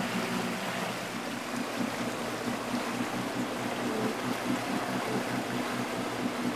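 Motorboat engine running steadily at low speed, a low even hum under a steady hiss of moving water.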